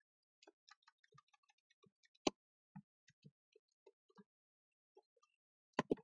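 Computer keyboard being typed on: faint, irregular keystrokes, with a sharper key click a little over two seconds in and two quick louder clicks near the end.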